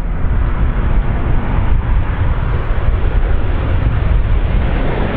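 Boeing 737-800 (BBJ2) on approach with gear down, its CFM56-7B jet engines giving a loud, steady rumble that is heaviest in the low end.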